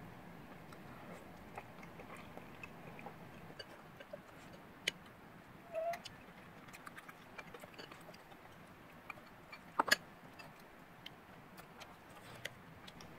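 Faint eating noises: scattered small clicks and ticks, with a sharper double click about ten seconds in.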